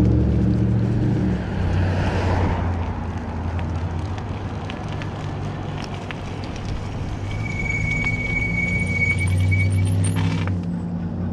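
Road traffic heard from a moving e-bike: passing cars' engines humming and tyres rushing, with wind noise on the microphone. A thin, steady high whine sounds for about two seconds past the middle.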